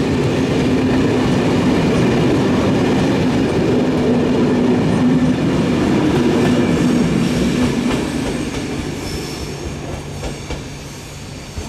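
Ouigo train of Corail passenger coaches running past at close range, a steady noise of wheels on rail. The noise fades over the last few seconds as the tail of the train draws away.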